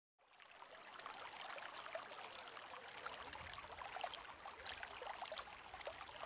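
Faint trickling, splashing water: a steady wash dotted with many small droplet ticks, fading in over the first second.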